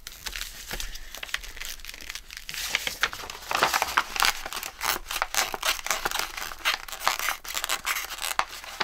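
A bone folder pushed and scraped under a glued-down paper hinge, with dry crackling and tearing of paper as the glued layers are pried apart. The crackling grows denser and louder after about three seconds.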